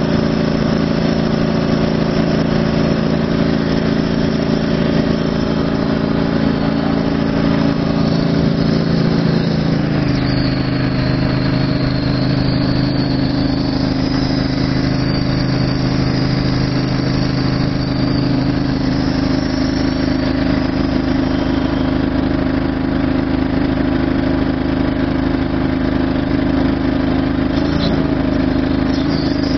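Engine of the hydraulic power unit feeding a rail weld trimmer, running steadily; its tone changes about ten seconds in.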